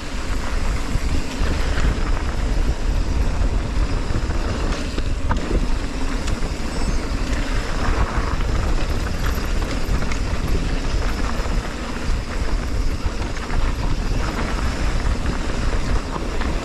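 Wind buffeting the microphone over the rumble and rattle of a mountain bike rolling fast down a dirt trail, with a few sharp knocks from the bike.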